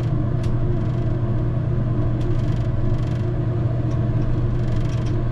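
Simulator reproduction of an ATR 72-600's twin turboprop engines and propellers at takeoff power during the takeoff roll: a loud, steady drone with a strong low hum.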